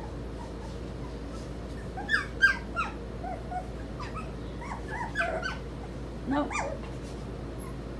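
Four-week-old puppies giving short, high-pitched cries in three small clusters, about two, four and six seconds in.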